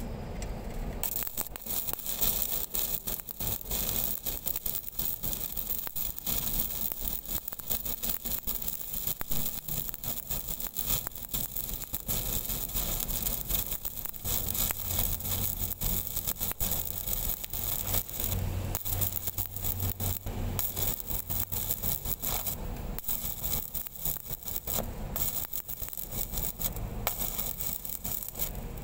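Stick (shielded metal arc) welding arc on a large steel pipe's girth joint: a steady crackling sizzle that starts about a second in, with a few short breaks later on.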